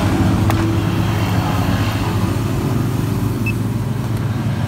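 A motor running steadily with a low hum. A single click comes about half a second in, and a short high beep about three and a half seconds in.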